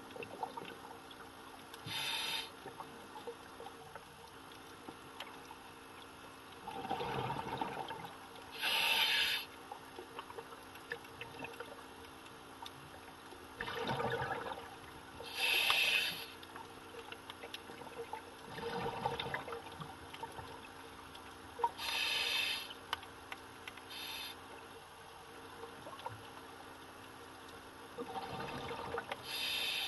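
Scuba diver breathing through a regulator underwater: a rumbling rush of exhaled bubbles, then a short hiss of the regulator on the inhale. The cycle repeats about every six or seven seconds.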